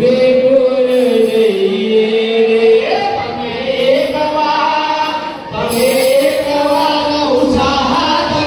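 Devotional kirtan sung by a group of voices, with long held notes that step up and down in pitch.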